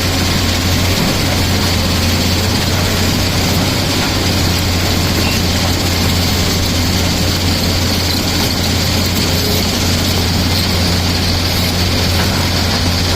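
Tata Hitachi hydraulic excavator's diesel engine running steadily with a deep, even hum.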